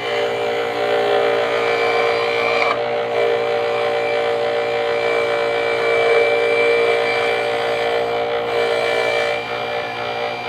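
Small motorized root-crop grater's electric motor running with a steady whine while a piece of ginger is pressed by hand against the spinning grating drum. The sound grows louder about a second in as the ginger is grated and eases near the end.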